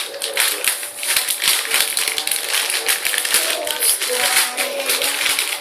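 Plastic packaging crinkling and rustling in a continuous run of small crackles as a squishy toy is handled.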